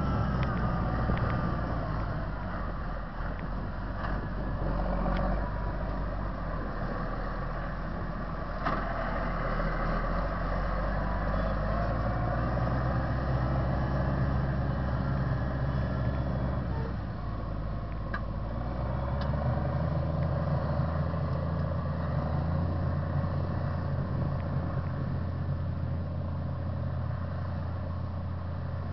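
Case IH MX220 Magnum tractor's diesel engine running steadily under load while pulling an eight-furrow Grégoire Besson reversible plough, growing a little fainter as the tractor moves away.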